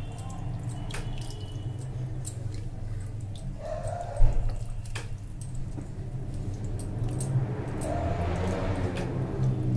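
Water poured from a cup into a glass bowl of thick semolina batter and a steel spoon stirring it, the spoon clicking against the glass now and then, with one sharp knock about four seconds in. A steady low hum runs underneath.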